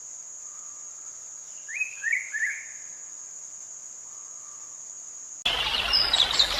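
A steady high-pitched insect trill, typical of crickets, with a bird giving three quick chirps about two seconds in. Near the end the sound cuts abruptly to a much louder rushing noise.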